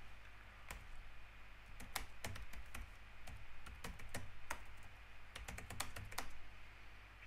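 Computer keyboard typing: keys tapped in short, uneven runs, with brief pauses between them.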